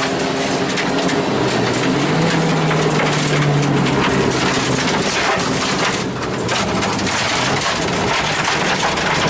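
Rally car running on a gravel stage: the engine's steady drone under a constant crunching hiss of gravel from the tyres.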